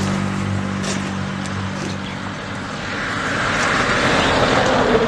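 Motor vehicle noise: a steady low engine hum that fades over the first two seconds, then a rushing noise that swells toward the end.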